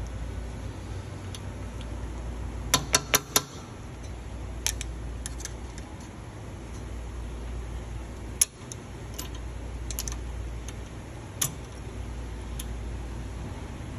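Light metallic clicks and taps of steel brake pad hardware, the retaining pin and spring clip, being worked into a Lexus SC430 rear brake caliper. There is a quick run of four clicks about three seconds in, then scattered single clicks, over a steady low hum.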